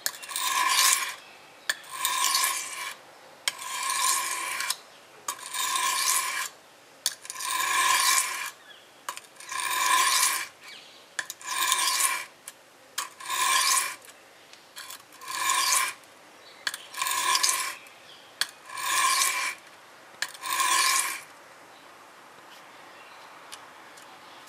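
A 420J2 stainless-steel kitchen knife drawn across a whetstone in long scraping strokes, about a dozen of them, one roughly every two seconds, with light clicks between strokes as the blade is set back on the stone; the strokes stop a few seconds before the end. The edge near the tip is being ground to raise a burr along the whole cutting edge.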